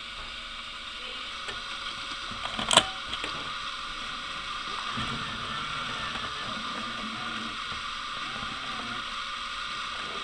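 Sony DCR-TRV103 Digital8 camcorder's tape mechanism whirring in play mode, with one sharp click about three seconds in and faint mechanical knocks after it. The tape does not play, and the screen shows only blue.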